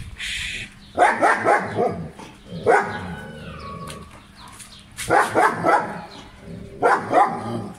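German shepherd barking in several bouts of rapid barks, a second or two apart.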